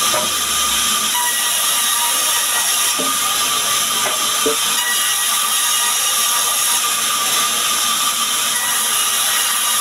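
Sawmill band saw running steadily and cutting small sengon logs into boards: a constant high hiss and whine, with a few brief wooden knocks of the timber being handled in the first five seconds.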